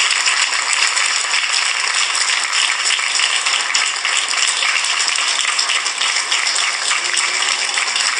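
Audience applauding, many hands clapping at once in a steady patter.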